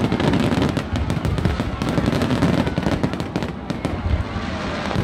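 Aerial fireworks display: a dense run of bangs from shells bursting overhead, one after another, over a low rumble.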